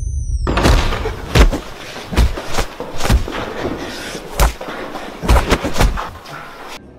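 Proton-pack firing sound effect: a dense crackling blast full of irregular heavy thumps. A high whine drops away as it begins, and it cuts off abruptly near the end.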